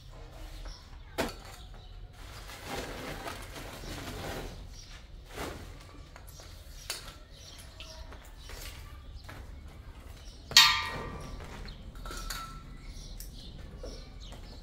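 Scattered knocks, with one much louder clang about ten and a half seconds in that rings on briefly.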